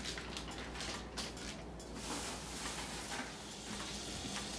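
Curry frying in oil in an enamelled pot, a soft steady sizzle. It follows a couple of seconds of light taps and clicks.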